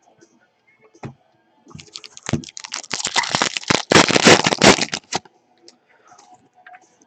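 Foil wrapper of a 2013 Contenders football card pack being torn open and crinkled: a dense crackling burst starting about two seconds in and lasting about three seconds, with light clicks of cards being handled before and after.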